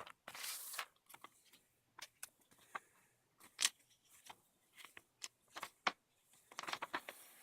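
Paper and cardboard being handled: a short rustle, then scattered light taps and ticks, with a denser flurry of rustling near the end.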